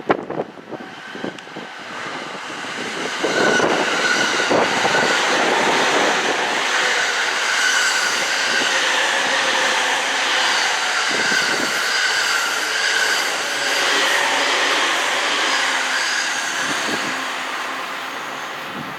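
JR East E231-1000 series electric commuter train, two sets coupled into one long train, passing at speed: a steady rumble of wheels on rail that builds about three seconds in, holds for most of the pass, with a few knocks at rail joints, and fades near the end.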